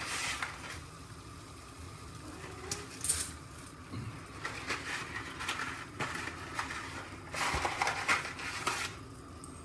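Kitchen handling sounds while portioning dry spaghettoni: scattered light clatter and rustling, with a longer rustling stretch about seven and a half seconds in.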